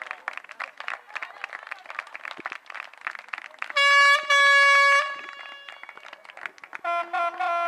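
A horn sounds two loud blasts, a short one then a longer one, about four seconds in, then three short blasts at a different pitch near the end. Before the horn there is a patter of short clicks.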